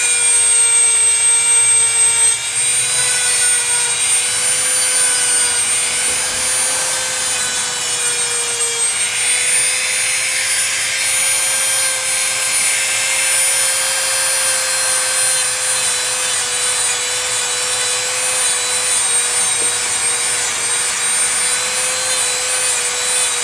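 Dremel rotary tool running steadily with a high whine, its bit grinding paint off a doll's arm; the pitch dips slightly now and then as the bit is pressed into the work.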